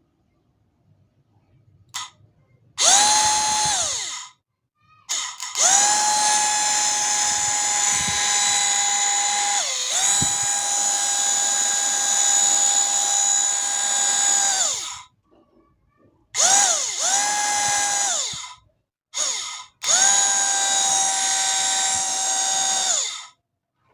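A 12 V 775 DC motor switched on and off in several runs, some short and some of several seconds. It winds up quickly to a high, steady whine and winds down with a falling pitch each time it is cut off. About ten seconds in, its speed sags briefly and recovers.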